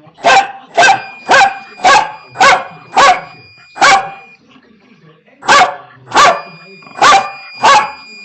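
A dog barking repeatedly, about two barks a second: seven barks, a pause of about a second and a half, then four more. A faint steady high tone sounds underneath.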